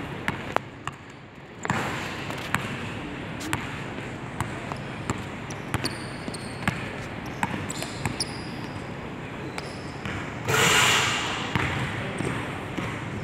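Basketball bouncing on a hardwood gym floor: a string of sharp, irregularly spaced thuds, with a louder burst of noise lasting under a second about ten and a half seconds in.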